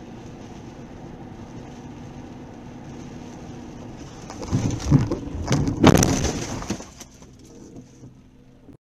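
Steady road noise from a car driving on a wet road. About four and a half seconds in, a loud burst of knocks and rushing noise lasts roughly two seconds, then fades back to the drive.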